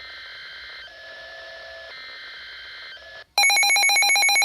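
Emergency Alert System tornado-warning tones: for about three seconds, quieter electronic tones that shift pattern about once a second, then a sudden loud, rapidly pulsing alert tone.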